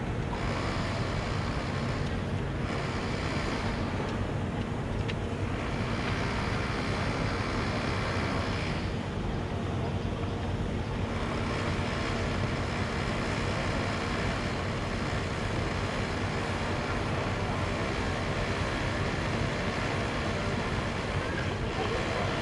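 Motorcycle riding in city traffic: its engine runs steadily under a constant rush of wind on the microphone, with surrounding traffic noise.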